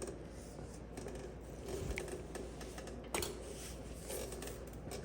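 Light, scattered clicks and scrapes of small metal parts being handled during a wheel hub inspection, with one sharper click a little after three seconds in.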